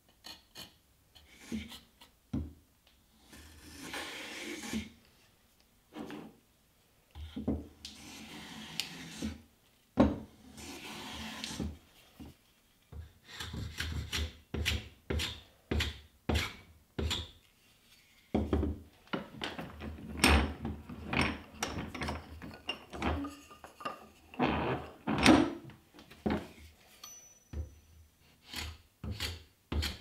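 Bench plane chamfering the edges of a pine frame piece: a quick run of short cutting strokes, about two a second, each with a light knock, through the second half. Before that come a few longer, slower scraping strokes on the wood.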